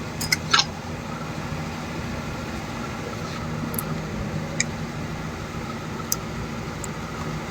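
Steady low hum of a running car, with a few sharp clicks about half a second in and a couple of faint ticks later.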